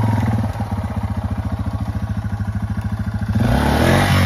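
Yamaha TW200's single-cylinder four-stroke engine chugging at low revs, then revving up and getting louder a little over three seconds in as the bike is pushed through the brush.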